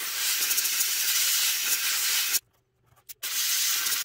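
Master airbrush spraying paint with a loud hiss in two main bursts: one about two and a half seconds long, then a short puff, then a second burst of under a second near the end.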